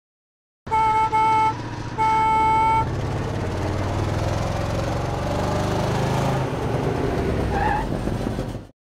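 School bus horn sounding two short toots and then a longer one, followed by the bus's engine running steadily for several seconds before cutting off suddenly.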